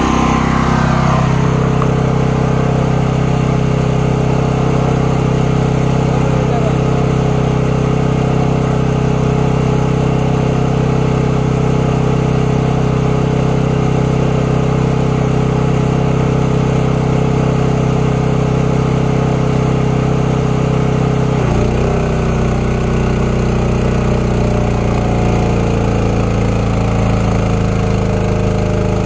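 Engine of a truck-mounted high-pressure sewer jetter running steadily; about three-quarters of the way through its note shifts and settles into a new steady pattern.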